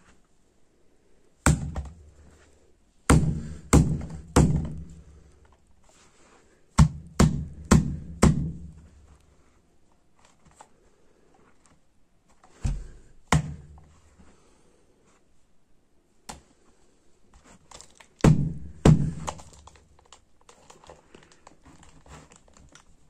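A fist punching a small plastic clock on a carpeted floor: about a dozen heavy thuds in quick bursts of two to four, with pauses between. The clock holds up and does not break.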